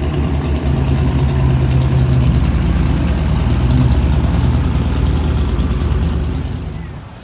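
A car engine running at low speed as the car arrives. It grows louder over the first few seconds, then fades and drops away near the end.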